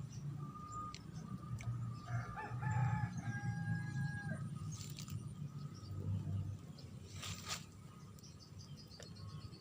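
A rooster crowing once, starting about two seconds in and lasting about two seconds, its call ending in a held note. A low rumble runs underneath, and there is a short noise near the end.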